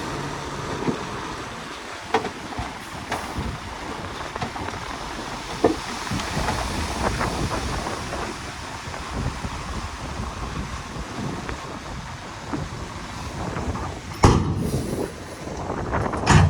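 Crawler bulldozer working: engine running under a steady rumbling noise, with scattered clanks and squeals from its tracks and two loud knocks about 14 and 16 seconds in.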